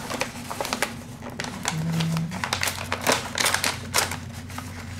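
Foil-lined plastic snack bag crinkling and crackling as it is handled and torn open by hand: a dense run of sharp crackles, thickest in the second half.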